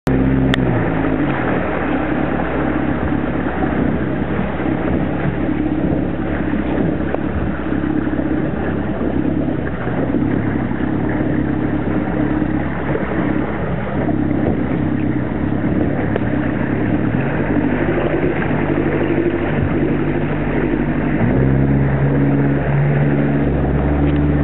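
Fishing boat's engine running steadily. Its pitch falls over the first couple of seconds and steps up about 21 seconds in.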